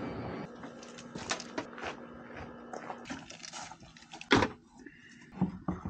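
Scattered clicks and knocks of equipment being handled, with one sharp clunk about four seconds in and a couple of smaller knocks near the end.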